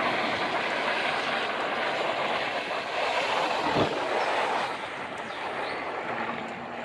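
Steady rushing noise of wind and tyres while riding a bicycle, easing off a little about two-thirds of the way through.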